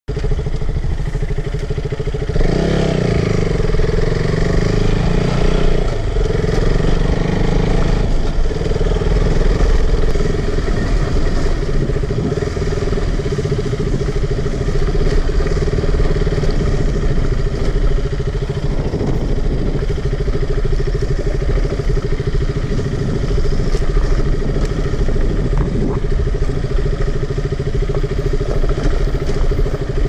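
Motorcycle engine running steadily as the bike is ridden along a dirt track, a little louder for several seconds near the start.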